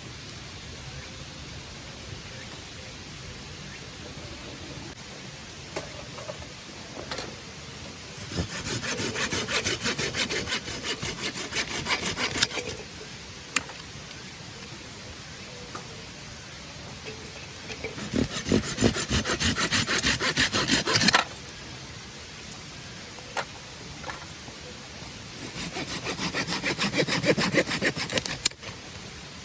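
Hand saw cutting through wood in three bouts of quick, even back-and-forth strokes, each lasting a few seconds, with pauses between them.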